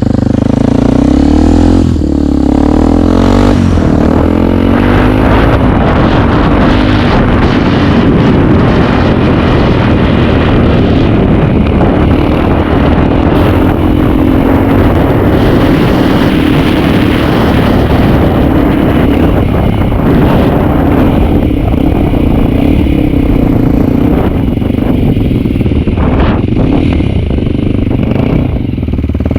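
Kawasaki KLX230's single-cylinder engine running loud through an aftermarket Triton exhaust. It revs up and down in the first few seconds, then runs hard and steady.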